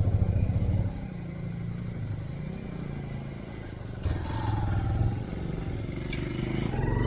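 Motorcycle engine running on a rough trail, its revs surging in the first second, dropping back, then rising again about four seconds in.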